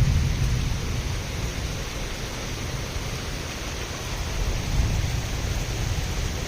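Heavy rain of a tropical storm falling steadily, an even hiss with a low rumble underneath that swells slightly about five seconds in.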